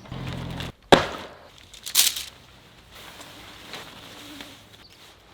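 Tent and camping gear being handled during setup: a short low hum at the start, a sharp knock about a second in, a brief swish about two seconds in, then soft rustling.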